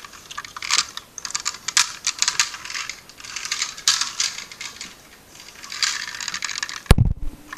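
Light clicking and rattling in irregular clusters, as a small hard toy car is handled, with one sharp knock near the end.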